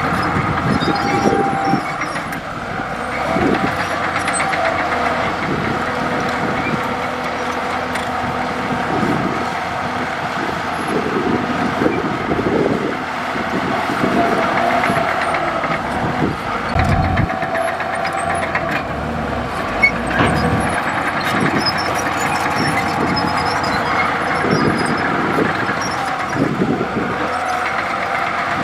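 Komatsu D65E crawler bulldozer's diesel engine running steadily as the machine works, its pitch shifting a little with the load.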